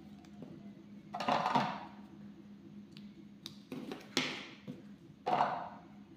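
Short scratchy rustles, three of them, and a few small clicks as hands pull sewing thread from a spool and wind it around a pen piece to bind on a rubber band, over a steady low hum.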